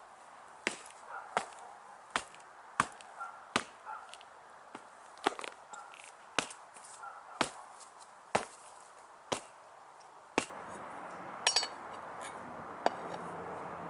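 About a dozen sharp knocks, roughly one a second, from blows struck to break the bead of a Model T's 30 x 3.5 in clincher tyre off its rim. A steady background noise comes up about ten seconds in.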